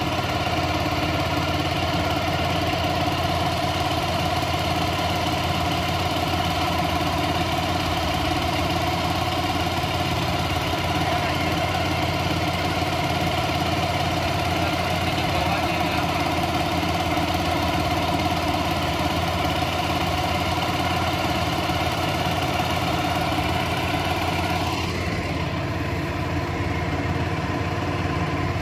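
Homemade boat outboard built from a 6 hp four-stroke engine driving through a three-wheeler motorcycle gearbox, running steadily under way at an even speed. About three seconds before the end the sound turns duller.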